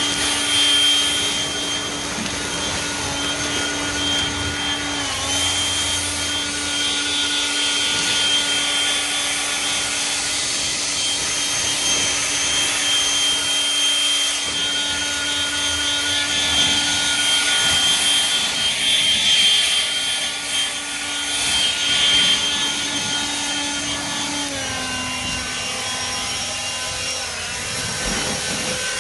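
Hart 40-volt brushless turbo fan leaf blower running steadily: a high fan whine over rushing air as it blows dry leaves. About 25 seconds in, its pitch drops a step as the motor slows slightly.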